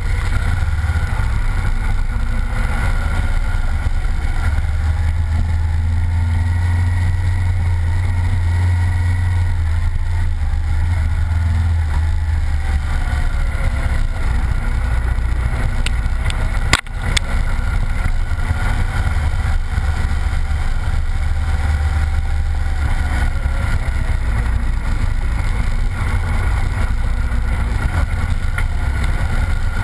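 Honda Varadero motorcycle's V-twin engine running steadily at speed on a dirt track, with wind rushing over the camera. A single sharp knock comes a little over halfway through.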